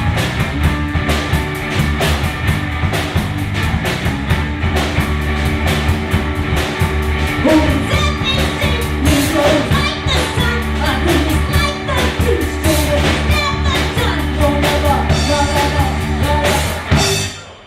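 Live three-piece rock band playing: drum kit and amplified instruments with a voice singing over them in the middle. The song ends abruptly about a second before the end.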